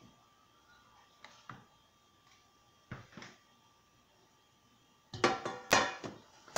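A few soft knocks of kitchenware being handled on a countertop, then, about five seconds in, a loud run of clanks with a short metallic ring as a black enamel cooking pot is set down on the counter.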